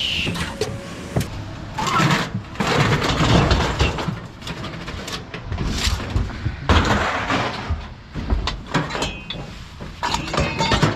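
Scrap metal being handled and thrown about: irregular clanks, knocks and scraping, with two longer scraping surges and a brief metallic ring near the end.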